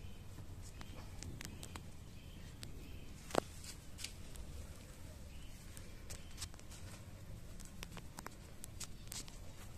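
A Shiba Inu puppy moving about in grass and on dry ground: faint rustling and scattered small clicks, with one sharper snap about three and a half seconds in, over a low steady rumble.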